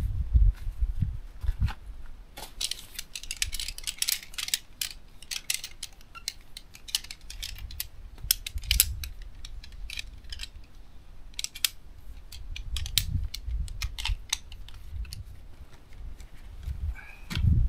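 Camping gear being handled at a tent: scattered crinkling and small clicks, thickest near the start and about halfway through, over a low rumble.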